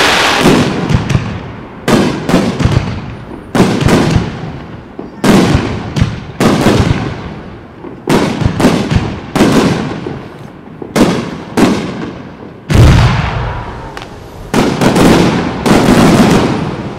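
Aerial firework shells bursting one after another, often in quick pairs and triples, each sharp bang trailing off in a rolling echo. The loudest, deepest bang comes about 13 seconds in.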